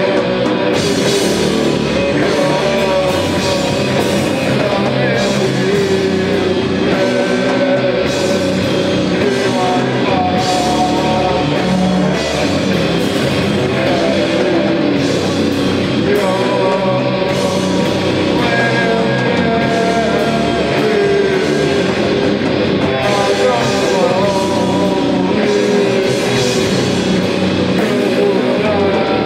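A band playing loud, dense rock music live, with guitar and drum strikes in an unbroken wall of sound and singing over it.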